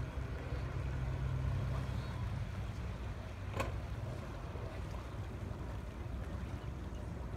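Outdoor ambience at the water's edge: a low, steady rumble, heavier in the first two seconds, with one sharp click about three and a half seconds in.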